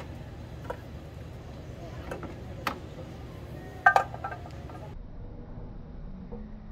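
Small metal scooter drive parts and hand tools clinking and tapping as they are handled, a handful of sharp clicks with a louder cluster of clinks about four seconds in, over a steady low background hum.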